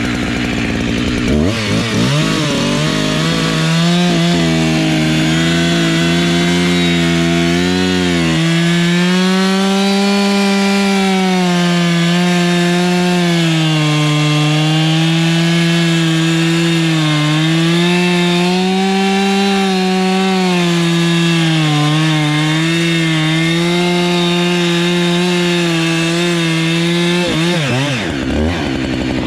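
Two-stroke chainsaw revved up from idle about a second in and held at full throttle cutting into a poplar trunk, its pitch dipping and recovering as the chain bites, then dropping back to idle near the end.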